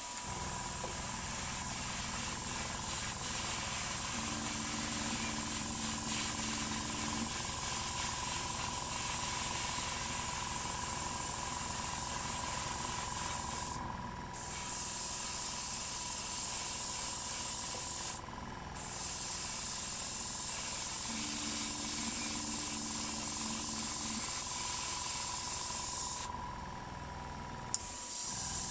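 Airbrush hissing steadily as it sprays primer at about 1.5 bar, with two short breaks around the middle and a longer one near the end where the trigger is let go. A small airbrush compressor runs steadily underneath.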